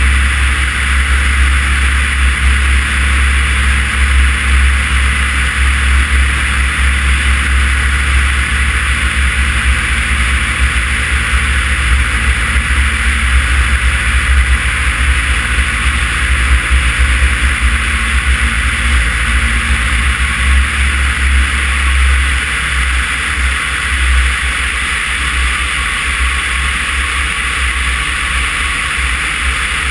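Cessna 140 light plane in flight: a steady engine and propeller drone under heavy wind rush buffeting a microphone mounted outside the airframe. The engine note eases somewhat about two-thirds of the way through.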